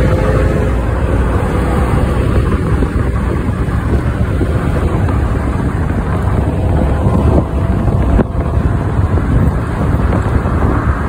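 Wind buffeting the microphone and steady road noise from riding in a moving vehicle along a busy highway.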